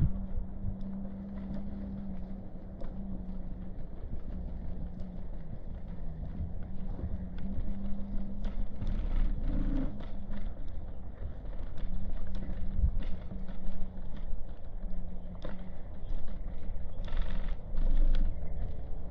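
Street ambience: a steady low hum of motor traffic with low rumble, broken by scattered light clicks and a brief burst of hiss about 17 seconds in.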